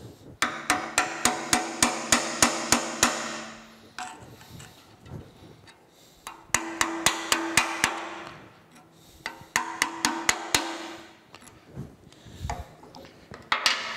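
Hammer tapping a chisel wedged behind the nameplate on a Monarch 10EE lathe's cast-iron base, to work out the drive screws that hold the tag. Four runs of quick taps, about four a second, with the metal ringing under each run; the first run is the longest.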